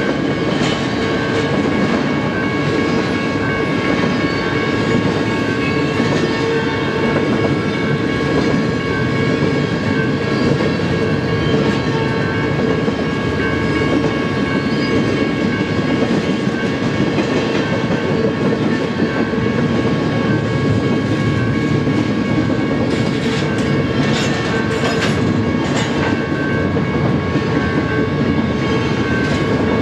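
Double-stack intermodal freight cars rolling steadily past over a grade crossing, their wheels clicking over the rails, over a steady high-pitched tone. A run of sharper clacks comes near the end.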